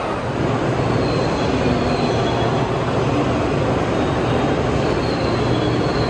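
N700S Shinkansen train's steady mechanical noise at the platform: an even rush with a constant low hum and a faint high whine that comes and goes.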